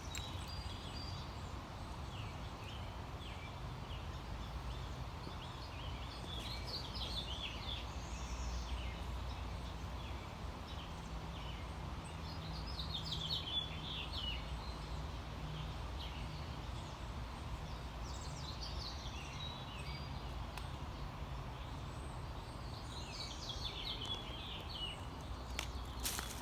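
A songbird singing a short, rapid phrase of high notes about every five to six seconds, four times, with a few faint chirps between. A steady low rumble runs underneath.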